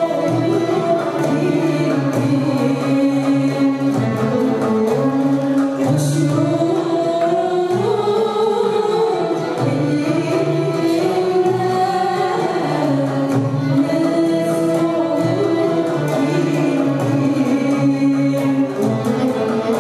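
A woman singing a slow, ornamented Turkish classical melody, accompanied by a traditional ensemble of kanun, oud and violin.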